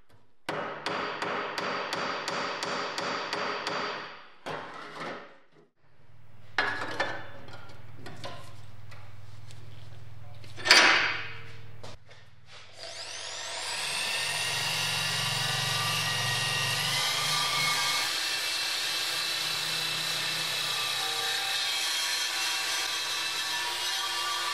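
A hammer taps quickly and evenly on the edge of a thin steel oven panel held over a steel vise, flattening and folding the sheet metal. About halfway there is one short, very loud burst of noise. After that a drill fitted with a wire-wheel brush spins up with a rising whine and runs steadily as it scrubs the bare metal panel.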